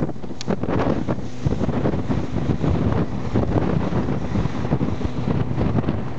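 Wind buffeting the microphone on a RIB running at speed over choppy water, with the boat's engine droning steadily underneath and the hull slapping and spraying through the waves.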